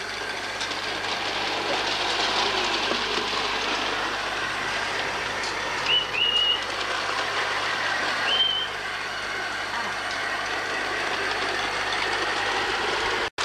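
Hornby 3½-inch-gauge live-steam model of Stephenson's Rocket running on its track, a steady hiss of steam and running noise. Two short high chirps come about six and eight seconds in, and the sound cuts out for an instant near the end.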